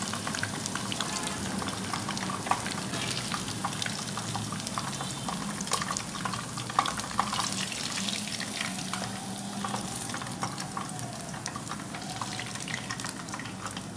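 Fish pieces frying in hot mustard oil in a non-stick pan: a steady sizzle with many small crackles and spits, easing slightly near the end.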